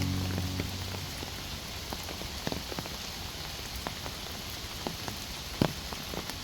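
Steady monsoon rain falling in a forest, a continuous hiss with scattered heavy drops striking close by, one much louder than the rest near the end. A low held musical tone fades out in the first second.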